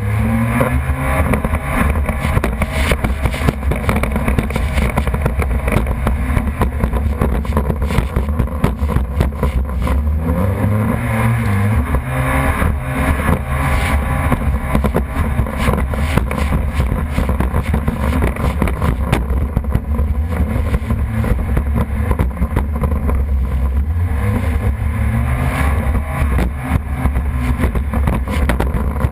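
Jet ski engine running under way, its pitch rising and falling several times with the throttle, over a steady rushing noise.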